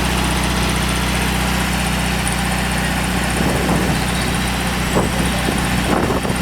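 VW Beetle's air-cooled flat-four engine idling steadily.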